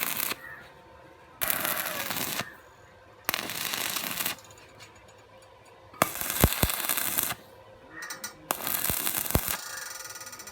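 Metalworking in a workshop: five harsh, crackling bursts of about a second each, with short pauses between them and a few sharp knocks about six and nine seconds in. The last burst fades away rather than cutting off.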